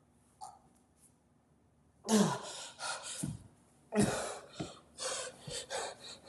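A boy's acted gasps and cries of distress: after about two seconds of near silence, a run of short, breathy gasping sobs, several of them dropping in pitch.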